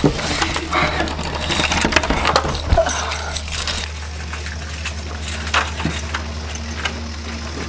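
Rustling and small clinking, knocking handling sounds as someone fumbles at the bottom of a door and then pushes it, over a low steady hum. The clinks and knocks are densest in the first half and thin out after about four seconds.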